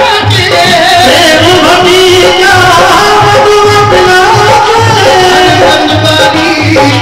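Live devotional bhajan music: a singer's melody with a regular drum beat and instrumental accompaniment.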